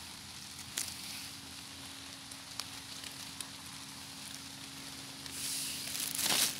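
Dry fallen leaves and twigs rustling and crackling as a hand gropes through the leaf litter for sweet chestnuts, with a few sharp clicks. A louder burst of rustling comes near the end.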